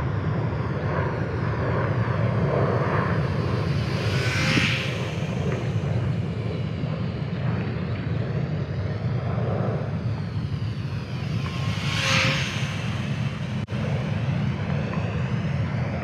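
Electric motor and three-blade propeller of an Eachine Spitfire micro RC warbird buzzing as it flies past twice, swelling and fading about four seconds in and again about twelve seconds in, over a steady low rumble.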